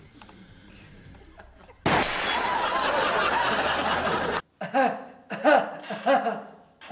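About two seconds in, a pistol shot and a light bulb shattering set off a loud burst of studio audience laughter, which cuts off suddenly about a second and a half before the end. A man then laughs in short, repeated bursts.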